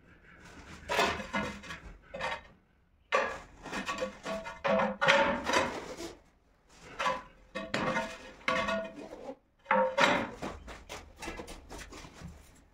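Background music playing in short melodic phrases separated by brief pauses.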